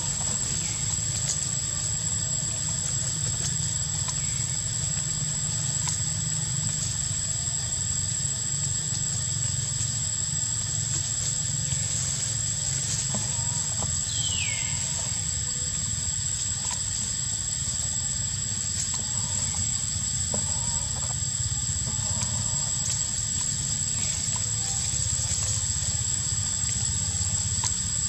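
Forest ambience: a steady high-pitched whine over a low rumble, with faint scattered rustling ticks and one short squeak falling in pitch about halfway through.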